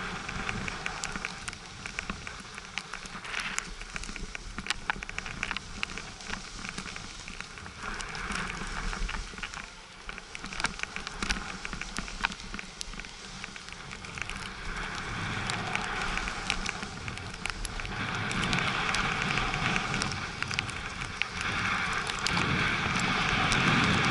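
Skis or a board sliding and scraping over snow: a crackling hiss full of small clicks that grows louder over the last ten seconds or so.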